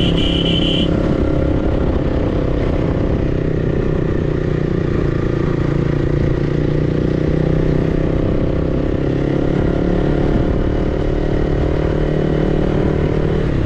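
Motorcycle engine running steadily, with road and wind noise, heard from the moving bike. A short high-pitched beep sounds right at the start.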